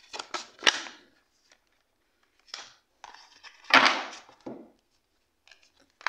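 Tarot cards being handled and laid down: quick card snaps in the first second, then a louder slap and rustle of cards past the middle, with a smaller one right after.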